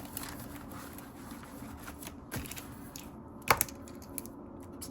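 Paper money and envelopes being handled: light rustling and small ticks, with one sharper click about three and a half seconds in.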